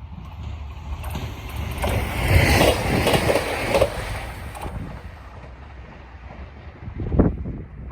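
A vehicle passing close by: a noisy rush that builds about a second in, peaks, then fades away, followed by a single short thump near the end.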